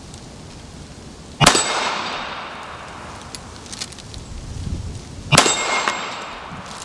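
Two .380 ACP pistol shots about four seconds apart from a Smith & Wesson M&P Shield EZ firing steel-cased 94-grain full metal jacket rounds. Each is followed right away by the ringing clang of a steel dueling-tree plate being hit and swinging over.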